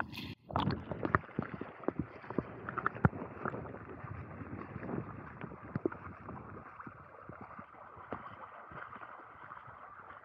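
Small waves lapping and splashing at the water's edge, with a steady wash and many sharp little clicks and splashes that are busiest in the first few seconds.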